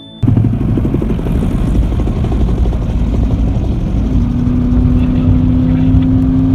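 An engine running with a loud, steady rumble that starts suddenly. From about four seconds in, a steady hum rises slightly in pitch.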